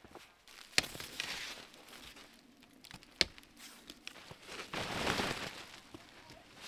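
Tent fabric rustling and crinkling as it is handled over the poles, with two sharp clicks, one about a second in and one about three seconds in, and a louder swell of rustling about five seconds in.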